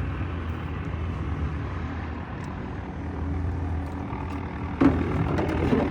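An engine running steadily at idle with a low, even hum, and a louder burst of noise near the end.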